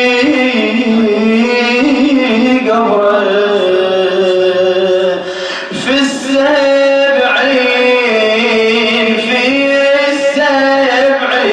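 A male radood's voice chanting a mournful Arabic elegy in long, held, wavering notes, with a short break for breath about halfway.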